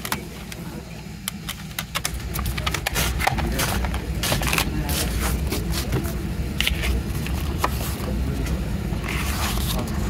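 Hands handling a Blu-ray case, then leafing through a glossy photo booklet: rustling and flipping pages with light clicks and scrapes of paper and plastic, over a steady low rumble.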